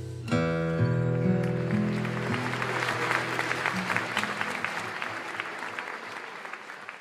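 Acoustic guitar strums a final chord and a few last notes ring out, while a small audience applauds. The clapping fades away toward the end.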